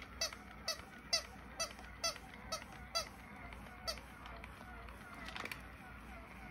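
Electronic bark of a battery-powered walking toy dog: a string of about eight short, falling yips, roughly two a second, then a brief buzz about five seconds in. Fainter yips of the same kind repeat underneath throughout.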